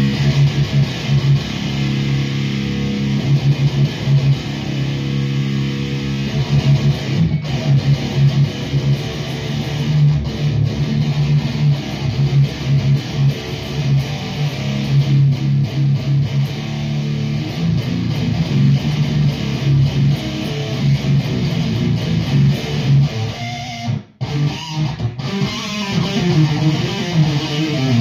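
High-gain electric guitar riffing through a REVV G4 distortion pedal into a Marshall JCM800 amp and Mesa cabinet, a tight, heavy rectifier-style tone with lots of low end. The playing stops for a moment near the end, then carries on.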